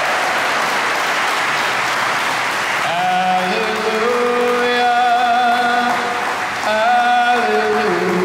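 Congregation applauding in a church. About three seconds in, held musical chords come in and change a few times, with the clapping carrying on beneath them.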